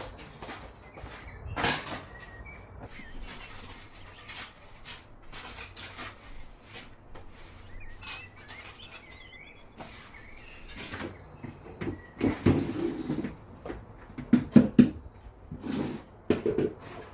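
Household items being handled: rustling and scattered clicks, with a run of louder knocks and clatter from about twelve seconds in.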